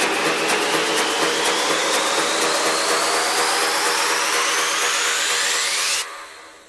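House-music build-up: a rushing white-noise riser with synth tones sweeping steadily upward over faint even ticks, the bass stripped out. It cuts off about six seconds in and fades away, ahead of the drop.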